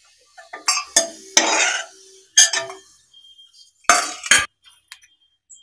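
Metal spoon scraping and clinking in a metal kadai as fried pirandai stems are scooped out onto a plate, with a few sharp knocks about a second in and again about four seconds in.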